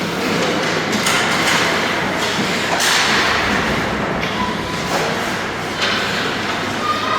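Youth ice hockey play: skates scraping the ice, with several sharp clacks and thuds of sticks and puck against the boards.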